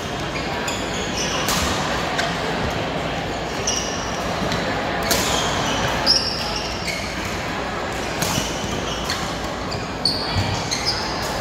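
Ambience of a busy indoor badminton hall: rackets striking shuttlecocks in scattered sharp hits across several courts, short squeaks of shoes on the court floor, and players' voices in the large hall.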